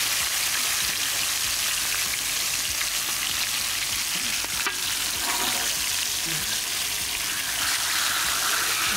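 Two whole masala-coated red pomfret sizzling steadily in hot oil in a wide metal pan, with a slotted metal spoon scraping against the pan as the fish are moved. There is a sharp click about halfway through.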